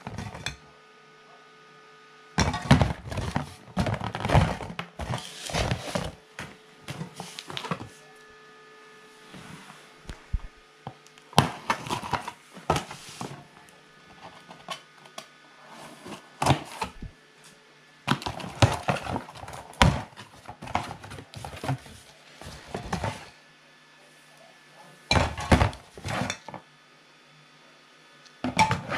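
Aerosol spray paint cans knocking and clinking against each other as they are handled in and out of cardboard boxes, with cardboard rustling, in irregular bursts with pauses between.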